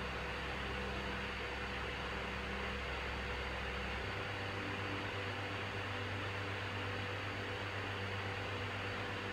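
Steady room noise: an even hiss under a low hum, the hum stepping to a slightly higher pitch about four seconds in.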